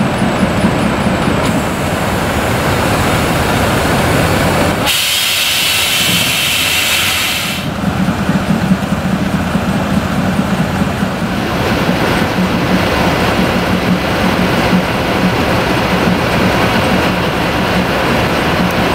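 Diesel locomotive engine running with a steady hum. About five seconds in, a hiss lasts for about two and a half seconds while the engine hum drops back, then the engine hum returns.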